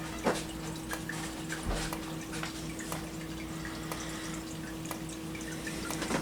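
Faint sharp ticks from a System Sensor SpectrAlert Advance ceiling strobe discharging as it flashes, over a steady low hum.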